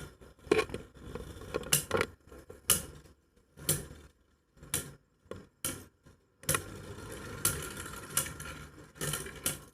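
Irregular sharp plastic clicks and knocks from Beyblade Burst tops and their parts, with a quieter gap in the middle and a denser steady stretch of rattling in the second half.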